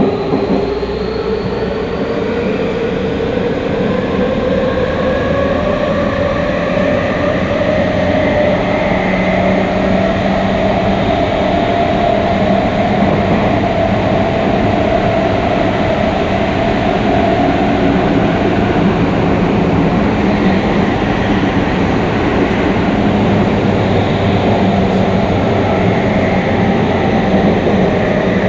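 Y500-series electric train running in a tunnel, heard from inside the car. The traction motors' whine climbs in pitch over the first ten seconds or so as the train accelerates, then holds fairly steady over the rumble of wheels on rail.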